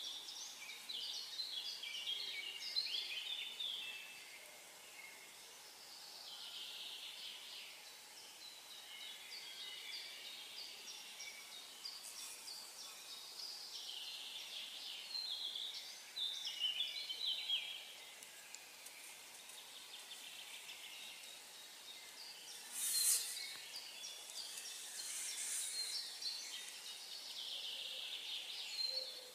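Several songbirds singing, short high phrases overlapping and repeating, over a faint steady background hiss. About three quarters of the way through comes a single brief, louder burst of noise.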